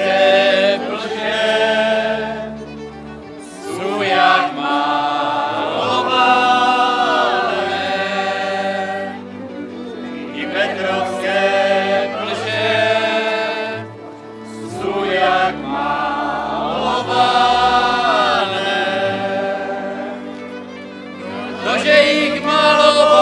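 A group of voices singing a folk song in phrases of a few seconds with short breaks, over an instrumental accompaniment with a stepping bass line.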